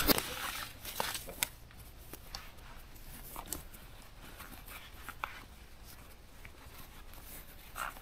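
Quiet handling of hiking-boot laces: faint rustling with a few light ticks as the laces are pulled and worked by hand.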